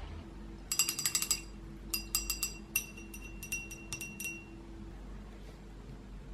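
Paintbrush swished in a small glass jar of rinse water, its metal ferrule clinking rapidly against the glass, which rings. Two runs of clinks, the second longer.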